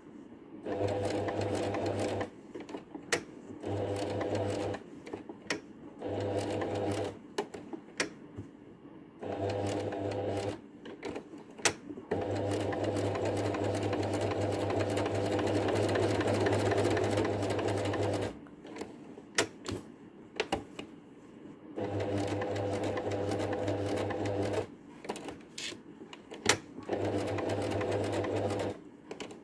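Electric sewing machine stitching a seam in seven short runs, the longest about six seconds in the middle, stopping between runs as the fabric is turned to follow the curves. Small clicks in the pauses.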